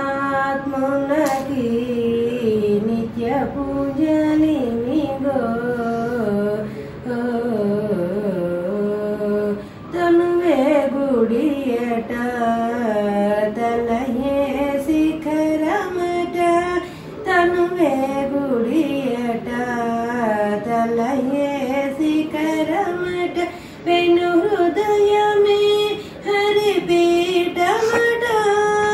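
A woman singing a devotional song solo, one voice carrying long melodic phrases broken by several short pauses for breath.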